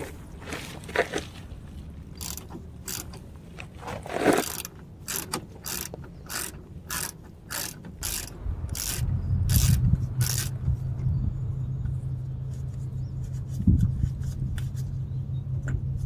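Socket ratchet clicking in short runs as the 8 mm bolts holding the oil filter service flap are backed out. From about nine seconds in, a steady low hum runs underneath.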